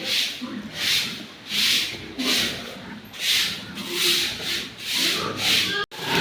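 Repeated rubbing strokes in a steady rhythm, about three every two seconds, each a short scratchy hiss. There is a sudden brief break near the end.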